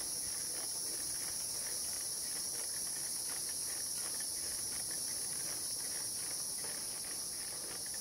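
Steady high-pitched chorus of insects in the trees, unbroken, with faint scattered ticking underneath.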